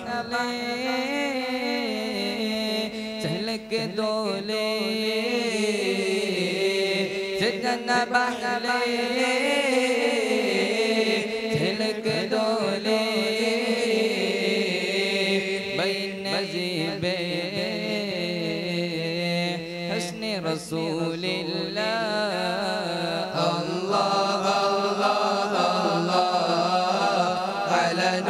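A group of boys singing an Arabic nasheed in praise of the Prophet together into handheld microphones, one long drawn-out, ornamented melodic line that carries on without a break.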